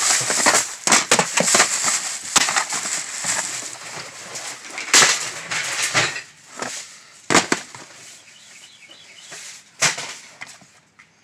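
Rummaging through junk by hand: rustling and clattering of loose items, busiest in the first half, with sharp knocks about five, seven and ten seconds in as things are dropped into a bin.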